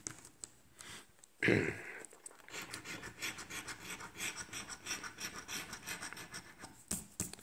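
A coin scratching the coating off a scratch-off lottery ticket, heard as a quick run of many small rasping strokes through the second half. A brief vocal sound from the person comes about one and a half seconds in.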